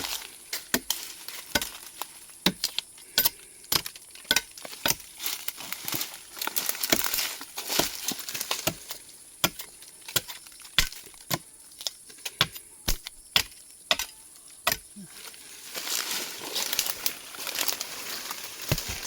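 Branches being cut during tree trimming: repeated sharp cracks, irregular, about one or two a second, with leafy rustling in between that swells near the middle and again near the end.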